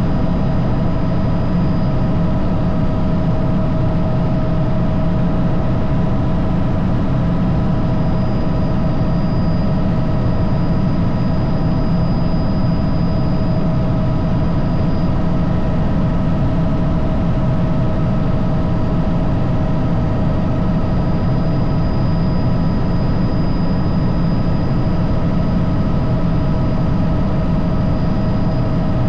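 Helicopter in flight: loud, steady rotor and turbine engine noise, a strong low rumble with several constant whining tones above it.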